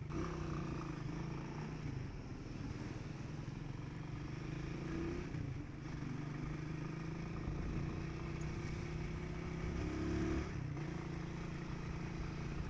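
Motorcycle engine running under way on a city street. Its note climbs slowly and drops back twice, about five and a half and ten and a half seconds in.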